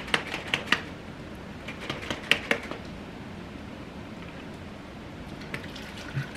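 Light clicks and taps of a plastic sauce bottle and its cap being handled, a cluster in the first second and a few more later, over a steady low background hum.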